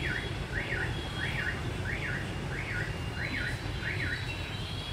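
An electronic alarm sounding a quick rising-and-falling whoop about three times every two seconds, stopping near the end, over a steady low background rumble.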